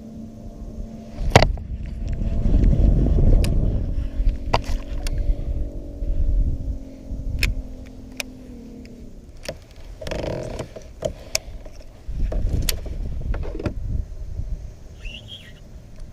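Electric trolling motor on a fishing boat whirring with a steady hum, which drops in pitch and stops about nine seconds in. Scattered sharp clicks and knocks and bursts of low rumbling noise are heard over it.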